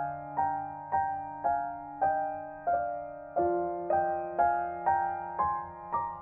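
Background piano music: gentle single notes struck about twice a second over sustained low notes.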